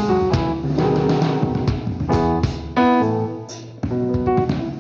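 Church band instrumental music led by keyboard, playing on with light drums after the worship chorus has ended, with no singing.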